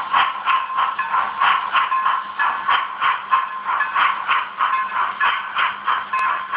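HO-scale model steam switcher's DCC sound decoder playing steady exhaust chuffs, about three a second, through the locomotive's small onboard speaker as it runs slowly.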